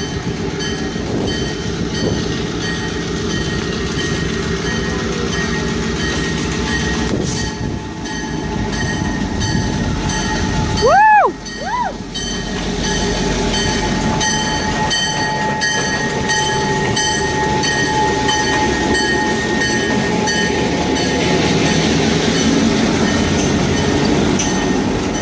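Wabash F7 diesel locomotive's EMD 567 two-stroke engine running past at close range, with steady rumble and wheel clatter that comes as regular ticks in the second half. About midway, two short loud horn toots, the second briefer, rise and fall in pitch: a horn salute from the engineer.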